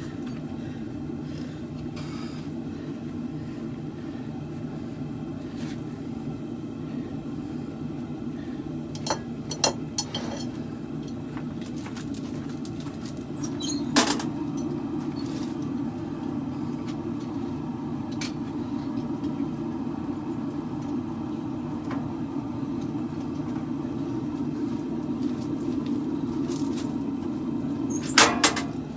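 Forge running with a steady low roar that grows a little louder about halfway through. A few short, sharp metallic clinks sound over it, the loudest just before the roar rises and a quick pair near the end.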